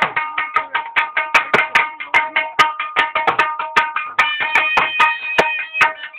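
Folk music: a fast, steady hand-drum rhythm under a melody of held notes that step up and down in pitch.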